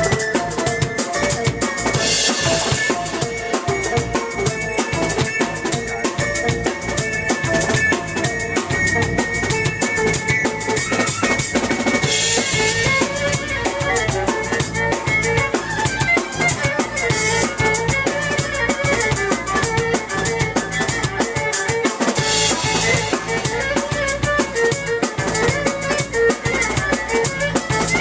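Live instrumental music from a trio of electric violin, drum kit and keyboard playing a driving beat. Held notes from the violin and keyboard run over the drums, with cymbal crashes about two, twelve, seventeen and twenty-two seconds in.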